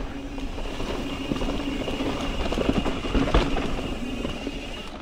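Mountain bike riding over a dirt singletrack: tyre and frame rattle from the rough ground, with a steady faint buzz and a cluster of sharp knocks about halfway through.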